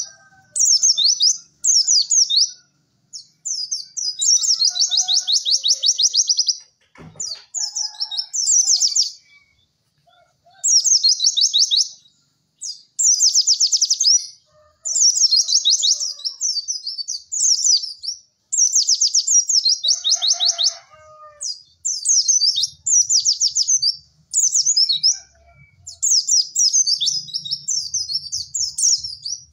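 White-eye (pleci) song: rapid, high-pitched chattering trills in bursts of one to two seconds with short pauses between them.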